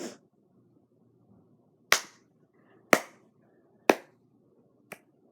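Sharp single clicks on a laptop, about one a second, the last one fainter.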